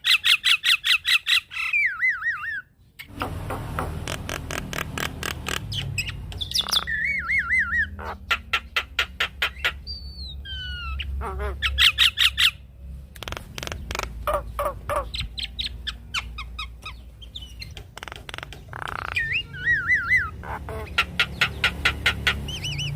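Javan myna song: harsh squawks and fast rattling runs of repeated notes, mixed with wavering whistles and sliding notes. A low steady hum sits underneath from about three seconds in.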